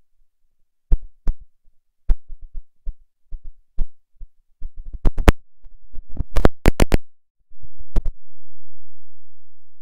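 Glitchy noise from a failed audio recording: irregular sharp clicks and thumps, thickest about five to seven seconds in, then a low hum that starts about eight seconds in and slowly fades.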